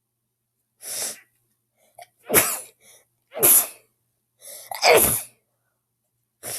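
A girl's harsh allergy sneezes in quick succession, about five, the three loudest about a second apart in the middle, with short breaths between them.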